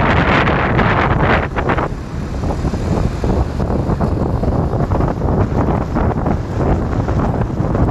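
Motorcycle riding at speed, with wind buffeting the microphone over the engine's low running sound. The wind noise is heaviest for the first two seconds, then eases a little.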